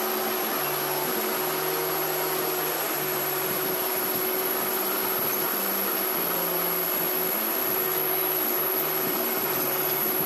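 Metal lathe running with a steel shaft spinning in the chuck while a cutting tool in the tool post turns it down: a steady whirring noise with a constant hum.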